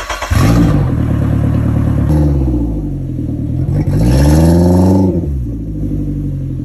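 Just-started Suzuki outboard motor running with its cowling off on flush water, revved up and back down about three times.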